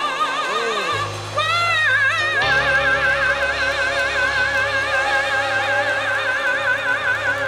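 A woman soloist in a church choir sings a long held note with wide vibrato, sliding up to a higher note about a second and a half in and holding it, over low sustained bass notes.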